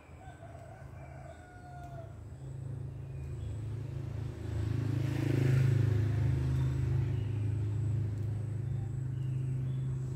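A low engine hum that grows louder to a peak about halfway through, then eases off, like a motor vehicle passing by. A drawn-out wavering call of about a second and a half sounds at the start.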